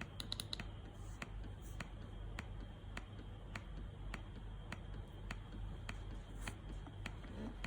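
Electric breast pump running quietly, its suction cycle giving a soft click a little under twice a second over a faint steady whine and hum.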